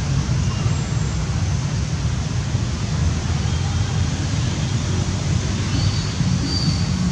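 Steady outdoor background noise with a heavy low rumble, and a few faint short high chirps about six seconds in.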